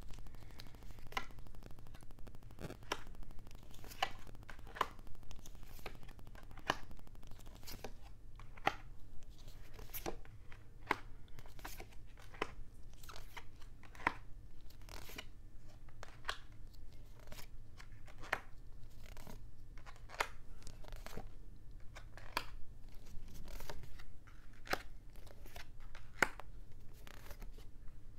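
Tarot cards being dealt one at a time from the deck into a spread: a long irregular string of short card snaps and taps, roughly one every second, over a faint low hum.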